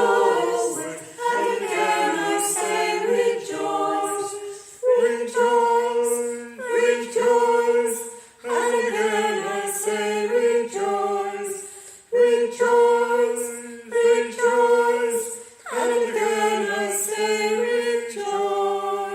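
Choir singing a cappella in held phrases, with short breaks for breath every few seconds.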